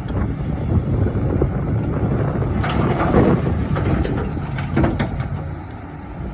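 Excavator engine running steadily under load, with sharp knocks and scraping of the bucket against rock from about two and a half to five and a half seconds in.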